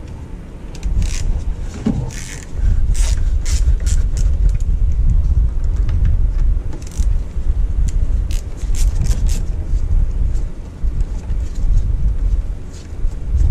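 Hand work on the throttle cable and its bracket at a Jeep 4.0 inline-six's throttle body: a scatter of sharp clicks and scrapes of metal and plastic parts being fitted, over a steady low rumble.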